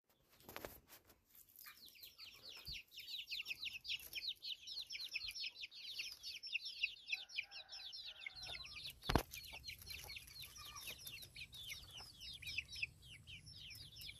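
Birds chirping in a dense chorus of quick, high, falling notes, many each second, that keeps going without a break. A single sharp click about nine seconds in, with a low rumble under the chirping from then on.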